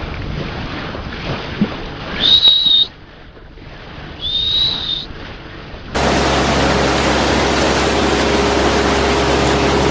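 Wind and water noise with two short, steady, high whistling tones, then from about six seconds in an abrupt change to a boat's engine droning steadily under heavy wind noise.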